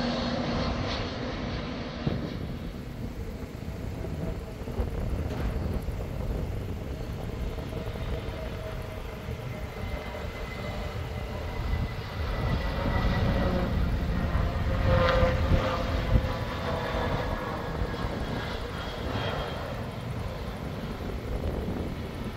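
Airbus A320neo jet engines on landing approach: a steady rumble with humming engine tones, growing loudest past the midpoint as the airliner draws nearest.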